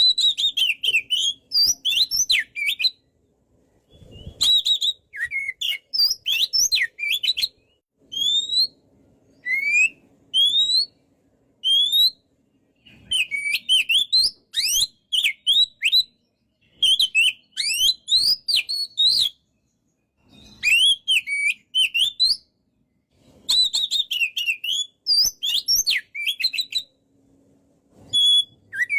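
Oriental magpie-robin (kacer) singing vigorously, in phrases a few seconds long of rapid, varied whistles and chirps, separated by short pauses. Near the middle, the song breaks into single rising whistles at about one a second.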